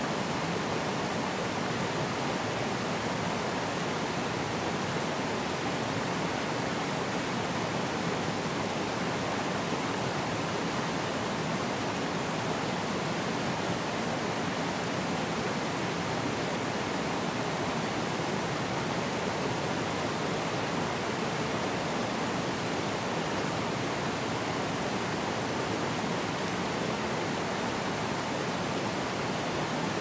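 Forest stream flowing over rocks and small cascades: a steady, unbroken rush of water.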